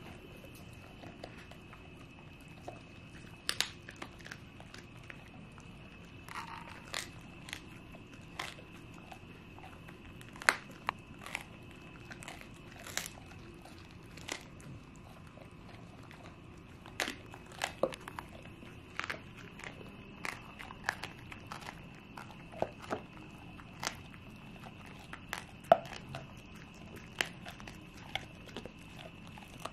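A Shar-Pei and a Welsh Corgi chewing homemade dog treats up close: irregular sharp crunches and bites, about one or two a second.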